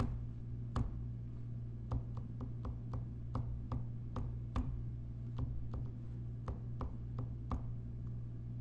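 Irregular sharp clicks and taps, two or three a second, from a computer being operated, over a steady low electrical hum.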